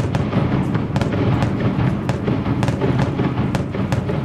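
Fireworks going off: a quick, irregular string of sharp pops and bangs, a few a second, over a continuous low rumble.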